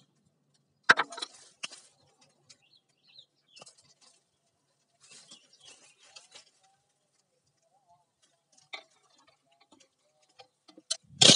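Pruning shears snipping dry bamboo stems, with dry leaves and sheaths crackling and rustling as they are pulled away; the sharpest snap comes about a second in. Right at the end, a loud clattering knock as the camera falls over.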